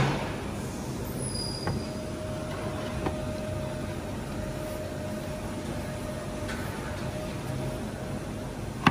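A few light knocks and a sharp clunk near the end as a new radiator is worked into place by hand, over a steady low hum with a faint steady tone.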